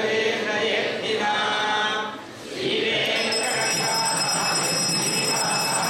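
Voices chanting, then from about three seconds in a bell ringing continuously, its steady high tones over a dense shimmering hiss.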